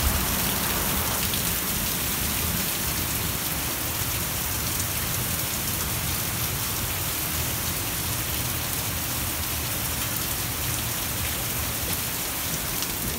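Heavy thunderstorm rain pouring steadily.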